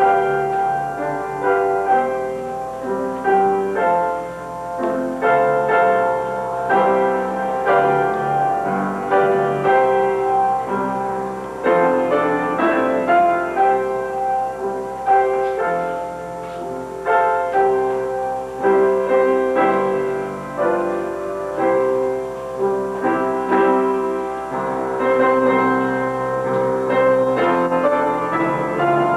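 Piano playing a slow, continuous piece, with melody notes over sustained chords.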